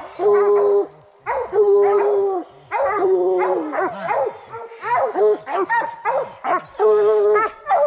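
Bear-hunting hounds baying on a track, mixing long, drawn-out bawls with short chopping barks that keep coming with only brief gaps.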